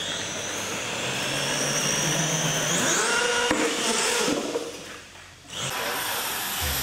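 Radio-controlled monster truck's motor whining as it drives, the whine rising in pitch over the first few seconds and then falling away, with a sharp knock about three and a half seconds in.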